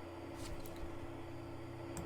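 Low steady hum with faint hiss, and a couple of faint clicks about half a second in.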